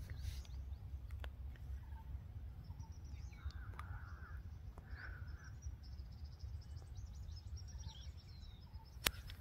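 Quiet open-field ambience: distant birds calling, with two short harsh calls about three and a half and five seconds in and faint high chirping after them, over a steady low rumble. A single sharp click near the end.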